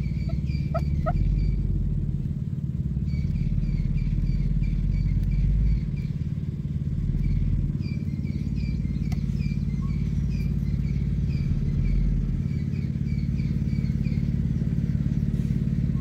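A steady low mechanical hum, like an engine running, with a bird calling over it in three runs of short repeated notes, about three a second, fading out near the end.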